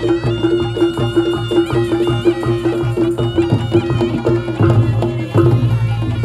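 Reog Ponorogo gamelan played live without loudspeakers: a shrill slompret reed pipe plays a melody over a held tone, with drums and gong strokes keeping a steady beat. Deeper gong notes come in strongly a little after the middle.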